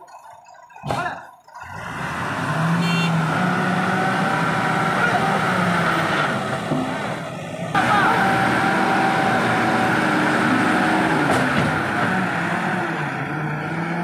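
Diesel engines of a loaded Ashok Leyland tipper lorry and a JCB 3DX backhoe loader running hard under load as the loader's bucket pushes the lorry out of deep mud. A loud steady drone starts about two seconds in, its pitch wavering as the revs change, with a brief break just before the middle.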